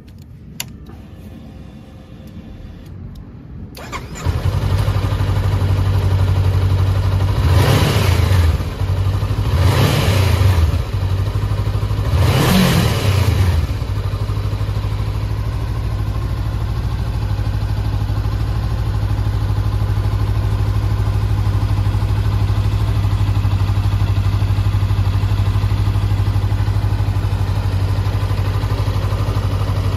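2019 Honda 400X's parallel-twin engine started on the electric starter about four seconds in, after a single click. It is blipped three times, each rev rising and falling quickly, then settles into a steady idle.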